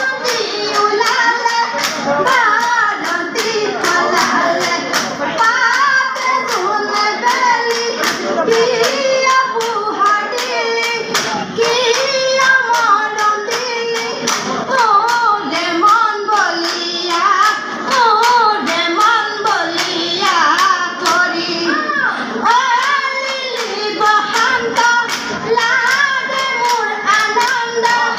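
A group of women singing a Jeng Bihu song together in high voices, kept in time by a steady beat of hand claps at roughly two to three a second.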